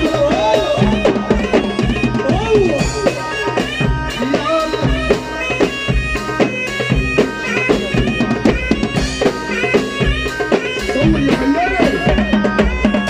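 Instrumental passage of a live Egyptian band: a reedy, wind-like melody line with wavering ornaments over a steady drum beat.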